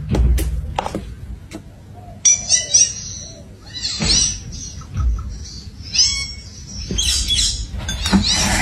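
Parakeet chirping: clusters of short, high, squeaky chirps about two, four and six seconds in, and a longer run near the end. A few sharp taps come in the first second and a half.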